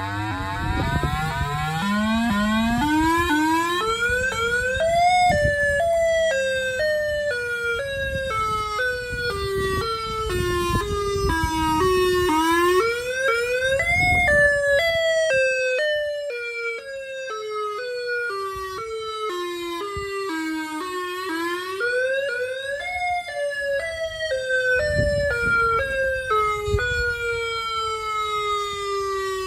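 Home-made electronic civil defense siren wailing through a loudspeaker. Its tone climbs in small steps and then slides down in steps, rising three times: slowly at first, then more quickly.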